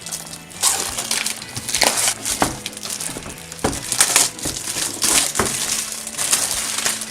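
Crinkling and crackling of toy packaging being handled, with many sharp clicks.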